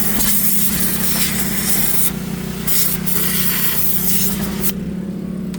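Pressure washer jet spraying onto a greasy Detroit Diesel bus engine, a loud hiss that breaks off briefly about two seconds in and stops near the end, over the pressure washer's motor running steadily.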